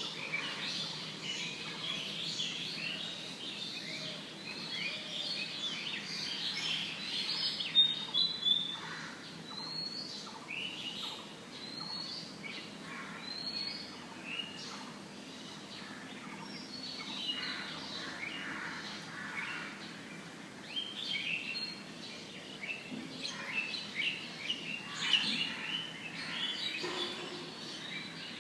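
Several birds chirping and calling, many short, high chirps overlapping one another, with a few louder ones standing out. A steady hiss of a low-quality recording lies underneath.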